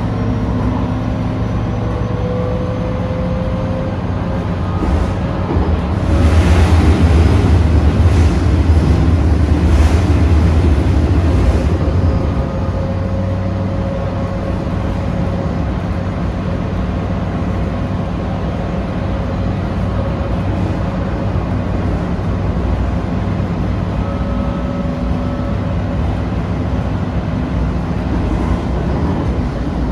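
Onboard ride noise of a Bombardier Flexity Swift light-rail car running along the track: a steady low rumble with a few faint steady hum tones. The rumble swells louder for about six seconds, from about six seconds in, then settles back.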